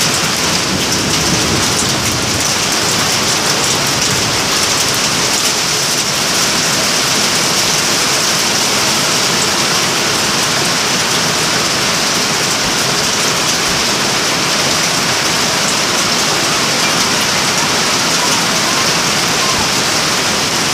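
Heavy rain mixed with hail pelting a corrugated metal roof: a loud, dense, unbroken clatter of countless small impacts.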